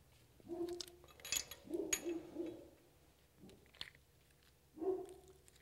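A few light metal clicks of a wrench working a valve adjusting screw's lock nut on the rocker arms, with three short, low hum-like tones between them.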